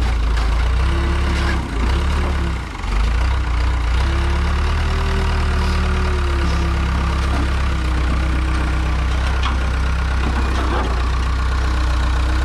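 Case 580E backhoe loader's engine running steadily while the loader works its hydraulics to set a scrap pickup body onto a trailer. The engine note rises and dips slightly with the load, and there are a few light metal knocks.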